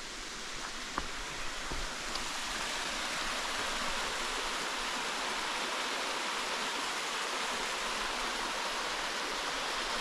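Steady rush of flowing water, growing a little louder over the first few seconds, with a couple of faint clicks about a second in.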